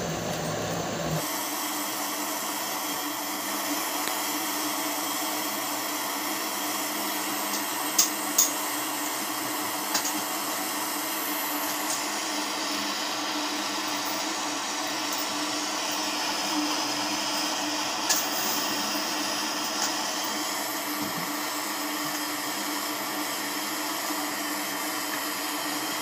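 Steady hiss of an LPG brazing torch flame heating a leaking copper U-bend on a window AC's evaporator coil for brazing, with a few sharp ticks.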